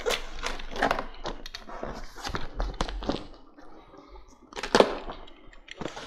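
Utility knife cutting through packing tape and cardboard on a box, a run of scratchy scrapes and sharp clicks. About three quarters of the way through comes a louder sharp knock as the cardboard flap is pulled open.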